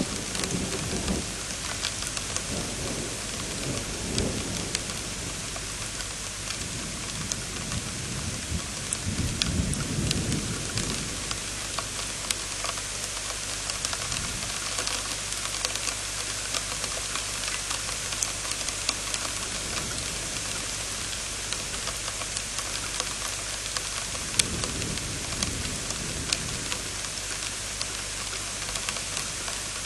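Heavy rain falling steadily, with scattered sharp drop ticks. Low thunder rumbles several times, loudest about nine to eleven seconds in and again near the end.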